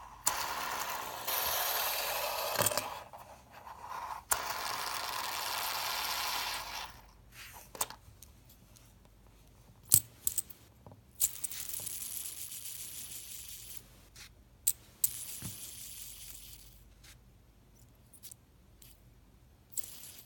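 Aluminum fidget spinner spun several times by hand, its ball bearing whirring with a squeak. Each spin lasts only two to three seconds before the binding bearing stops it short, with sharp clicks between spins; the bearing is bad out of the box.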